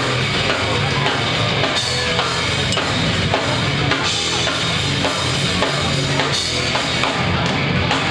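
Hardcore punk band playing live at full volume: a pounding drum kit with bass drum and snare under electric guitars.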